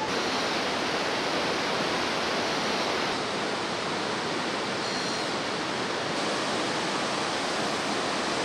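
Steady rushing roar of the Bhote Koshi, a fast whitewater river running through the gorge below.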